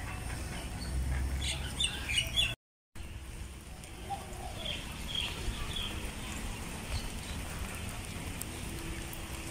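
Birds chirping in short, scattered calls over a low steady background rumble. The sound cuts out completely for a moment about two and a half seconds in.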